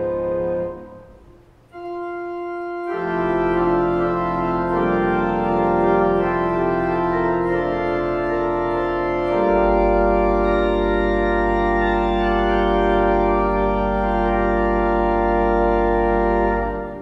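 Organ playing slow, sustained chords. A chord releases about a second in and a single held note follows. Full chords enter at about three seconds, a deep pedal note joins near the middle, and all of it is released together near the end.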